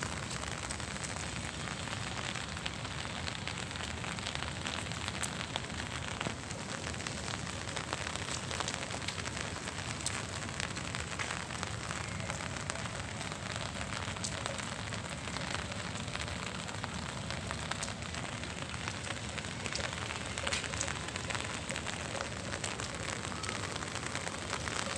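Steady rain falling on the leaves of garden plants: an even hiss full of many small drop hits.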